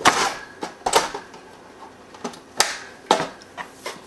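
Metal briefcase barbecue being latched shut and handled: a string of sharp metallic clicks and clanks from its latches and fittings. There are about four loud ones roughly a second apart, with softer clicks between.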